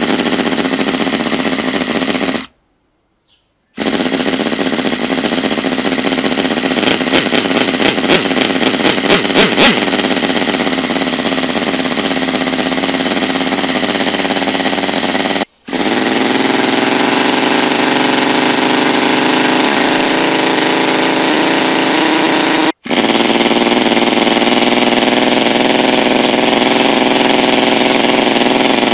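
Small O.S. nitro (glow-fuel) Wankel rotary model engine running, a loud steady buzz that wavers up and down in loudness between about six and ten seconds in. The sound drops out abruptly three times.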